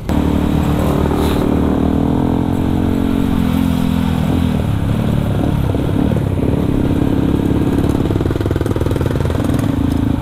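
Yamaha WR155R's single-cylinder engine heard onboard while riding, its pitch easing down over the first few seconds, wavering with the throttle through the middle, and rising again near the end.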